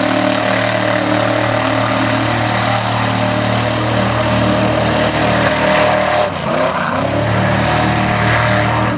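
Mega mud truck's engine running hard at high revs as its tires spin through deep mud. About six seconds in the revs dip and waver briefly, then climb again.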